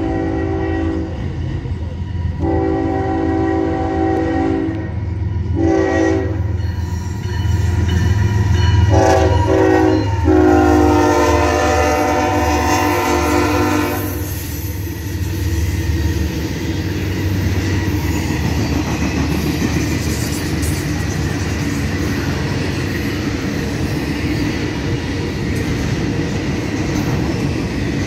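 CSX freight locomotive's multi-chime air horn sounding the grade-crossing pattern: the tail of a long blast, another long blast, a short one, and a final long blast that ends about 14 seconds in. A diesel rumble underneath swells as the locomotive passes. After that, the intermodal cars roll by at speed with a steady rumble and clatter of wheels on rail.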